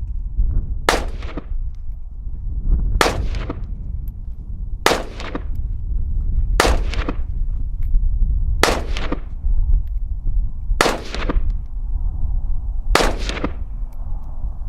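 Seven rifle shots fired one at a time, about two seconds apart, each with a short echoing tail. Wind buffets the microphone with a steady low rumble throughout.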